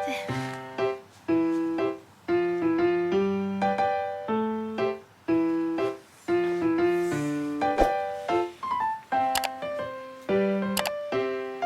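Background music: a light piano melody played in a steady, bouncing rhythm, with a few faint clicks.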